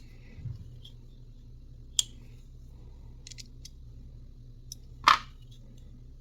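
Brian Brown Yeager folding knife being worked open and shut: two sharp metallic snaps of the blade, about two and five seconds in, the second the loudest, with faint ticks in between. The freshly greased detent action is a little tight, so the blade does not drop shut quite freely.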